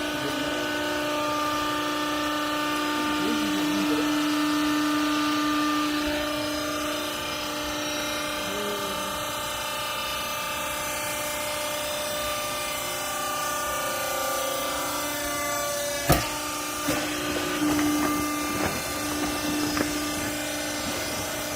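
Hydraulic clothes baler's pump and motor running with a steady hum. A sharp knock comes about three quarters of the way through, followed by a few lighter knocks.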